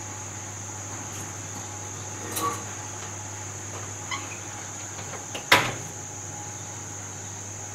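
Light metallic clinks as a part is hung on the wire rack of a domestic oven used for powder coating, then the oven door shuts with a sharp clunk about five and a half seconds in. A steady low hum and a high whine sit underneath.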